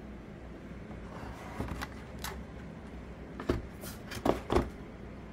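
Handling noise: a hand moving the hotspot's cardboard packaging on a desk. It makes a handful of short knocks and clicks, and the two loudest come close together near the end.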